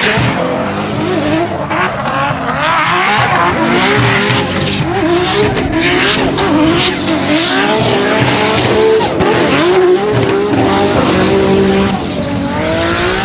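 Drift car engines revving hard, their pitch rising and falling again and again, over the squeal of sliding tyres.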